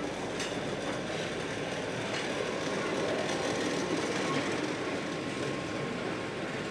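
Steady low mechanical background noise with a slight swell in the middle.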